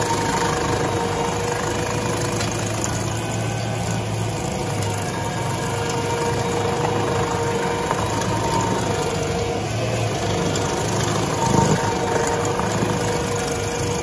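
Rayco RG80 stump grinder running under load as its New River Revolution cutter wheel, its teeth somewhat dull, grinds into an oak stump: a steady engine drone over the noise of chipping wood. There is a brief louder knock about two-thirds of the way through.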